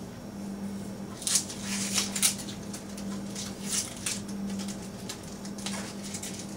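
Papery onion skin crackling and rustling in short, uneven bursts as it is peeled off a halved onion by hand, over a low steady hum.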